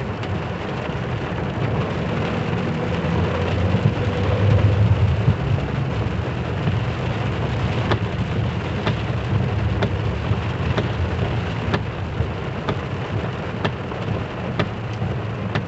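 Heavy rain falling on a car's windshield and roof, heard from inside the cabin over the low rumble of the engine and tyres on the wet road. From about halfway in, the windshield wipers tick about once a second.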